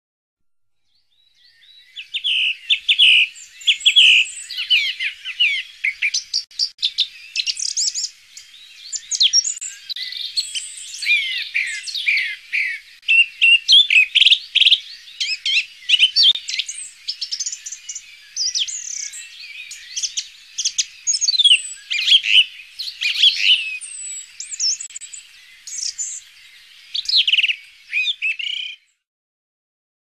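Songbirds singing: a dense run of chirps, whistles and trills from several birds at once, fading in about a second in and cutting off abruptly near the end, like a recorded birdsong track.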